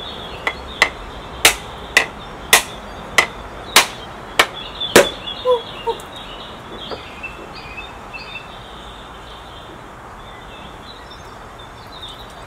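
A whole coconut being struck hard about eleven times, roughly two knocks a second, to crack its shell open; the knocks stop about six seconds in. Birds chirp throughout.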